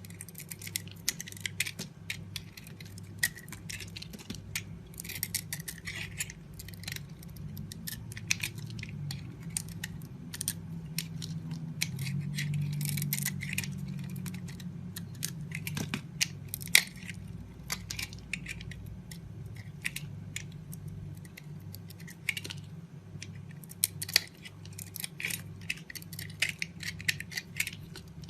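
A knife cutting into a bar of soap: runs of crisp crackling clicks that come in clusters, over a low steady hum.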